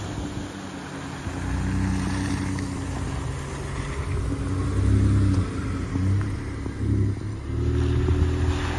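Nissan Frontier pickup's V6 engine revving up and down as the truck pulls through shallow muddy water and drives past close by, getting louder near the end.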